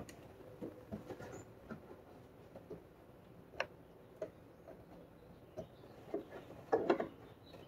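Small plastic clicks and scrapes of an uncapped automotive relay being handled and pushed into its relay socket, with a louder cluster of clicks near the end as it goes in.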